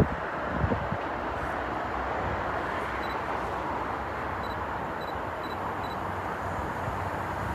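Steady rumble of an approaching East Midlands Railway diesel train on the line, with a low engine hum coming in at the very end.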